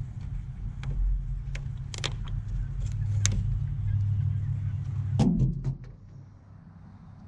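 Steady low rumble with a few sharp clicks and scrapes, the loudest cluster about five seconds in; the rumble cuts off suddenly about a second later.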